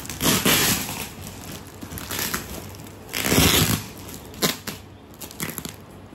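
Plastic packaging crinkling and being crushed: two loud rustles, one just after the start and one about three seconds in, with scattered crackles and taps between them.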